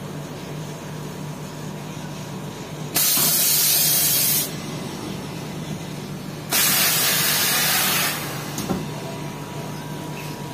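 Compressed air hissing from a fabric press's pneumatic cylinders as it cycles, in two sharp-edged bursts of about a second and a half each, over a steady machine hum. A short knock follows just after the second burst.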